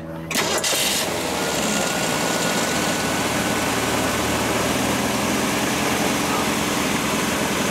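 A 1966 Ford Mustang's 200 cubic-inch inline-six is cranked by the starter and catches within about a second, then idles steadily and quietly.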